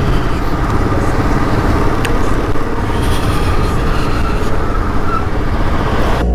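Motorcycle on the move: the engine runs steadily under a heavy rush of wind noise on the microphone, and the sound cuts off abruptly at the very end.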